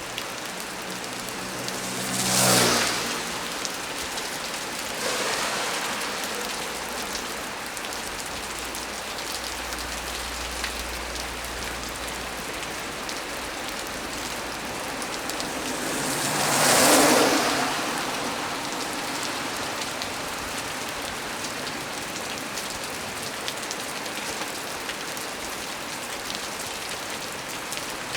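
Heavy rain falling steadily. Twice the sound swells louder and fades over a second or two: once about two and a half seconds in, and again around seventeen seconds.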